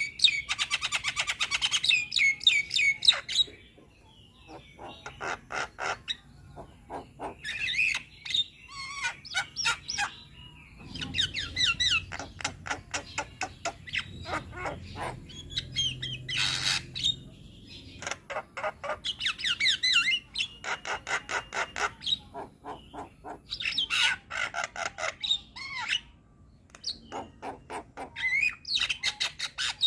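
Javan myna (jalak kebo) singing in long chattering phrases: fast runs of rattling clicks mixed with warbling whistled notes, broken by brief pauses.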